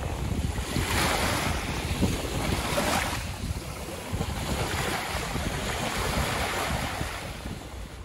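Small sea waves breaking and washing up onto a shallow beach, with a louder wash about a second in and another about three seconds in. Wind buffets the microphone throughout.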